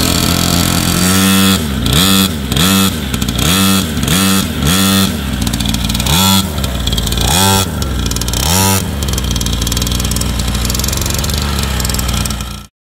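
Small 49cc two-stroke engine of a mini dirt bike idling, its throttle blipped in a quick series of about eight short revs, then three more about a second apart, before it settles back to idle. The sound cuts off suddenly near the end.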